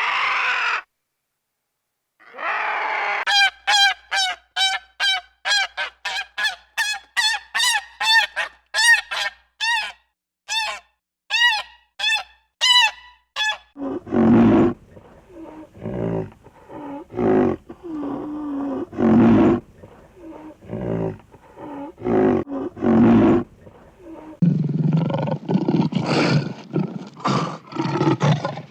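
Animal calls: a fast series of short, high, pitched calls, about two or three a second, then from about halfway lower, harsher calls in irregular bursts.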